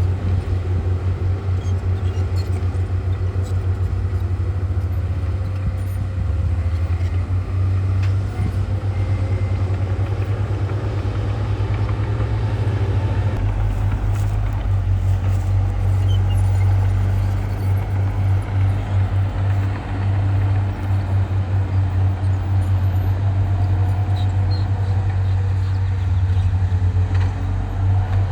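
Heavy earthmoving machinery's diesel engine running steadily with a deep, constant rumble, its pitch drifting slightly up and down.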